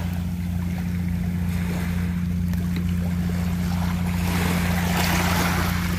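Small sea waves washing over pebbles and gravel at the water's edge, swelling about four and a half seconds in. A steady low hum runs underneath.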